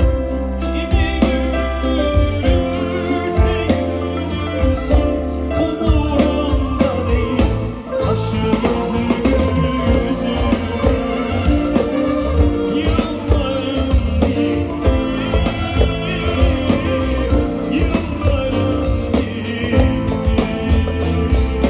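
Live band playing Turkish music: a male voice singing over clarinet, guitar, keyboard and drum kit, with a steady beat.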